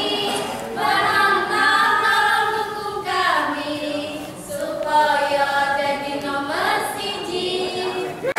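A group of young women singing their team's yel-yel cheer song together, in long held notes with slides in pitch between them.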